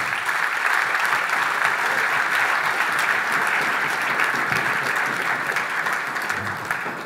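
Audience applauding: dense, steady clapping from many people that begins to die away near the end.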